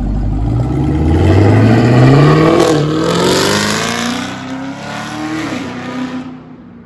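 Chevrolet Camaro's 6.2-litre V8 through a Corsa Extreme NPP variable catback exhaust, accelerating hard away. The engine note climbs, drops back at an upshift about three seconds in, and climbs again. It then falls away and fades as the car goes off into the distance.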